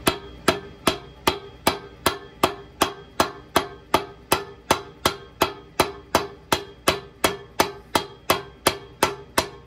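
Steady, even hammer taps driving a bushing into a ratchet gear, about two and a half taps a second, each with a short metallic ring.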